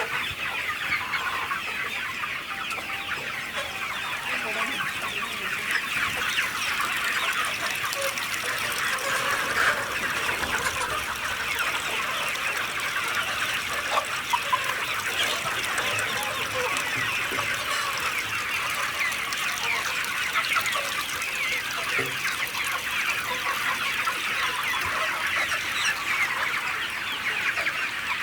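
A large flock of native chickens clucking, dozens of short calls overlapping in a steady, continuous din.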